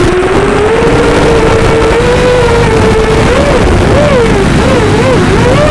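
FPV racing quadcopter's brushless motors whining. The pitch holds fairly level at first, then swings quickly up and down several times as the throttle is worked.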